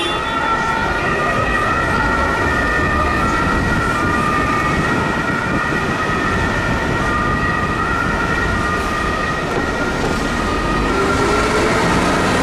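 German two-tone emergency vehicle siren (Martinshorn) sounding continuously, switching back and forth between two pitches, over the rumble of truck and city traffic engines.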